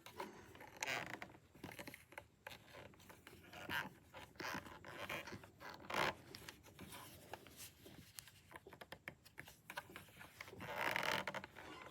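Irregular scratching and rustling strokes, with a louder stretch near the end.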